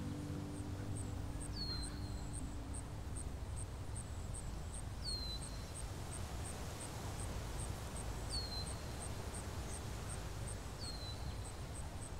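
Outdoor ambience: a steady low rumble, a high, even ticking about three times a second, and a bird's short downward-slurred whistle repeated four times, about every three seconds. The tail of a music chord fades out in the first second.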